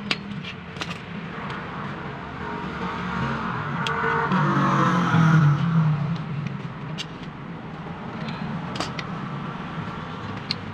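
Sharp metallic clicks and taps of pliers working on a car power window regulator, over a low steady hum. In the middle a motor vehicle passing by swells up and fades away, the loudest sound.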